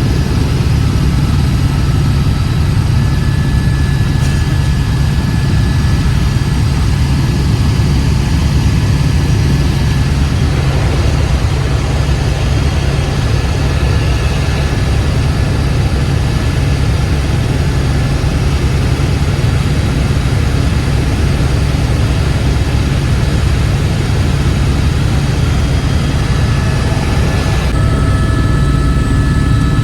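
Helicopter engine and rotor running: a steady, loud low drone with faint steady high whining tones above it.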